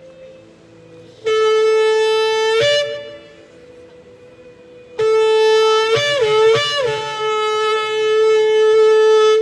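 Shofar blown in two long blasts. The first is steady for about a second and a half and breaks upward in pitch at its end. The second, longer one wavers up and down in pitch a few times about a second in, then holds one steady note.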